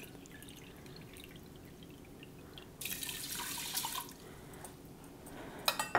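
Water poured from a stainless steel measuring cup into the Ninja Foodi's inner pot over rinsed rice, a short splashing pour of about a second starting roughly three seconds in.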